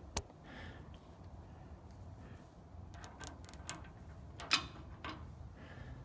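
Scattered light clicks and clinks of bolts and nuts being handled, the loudest about four and a half seconds in, over a faint low hum.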